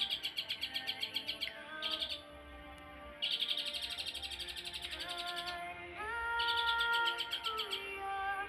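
Long-tailed shrike (cendet) singing in four bursts of very fast, rattling chirps with short pauses between them. Under the song runs background music with held, sliding notes.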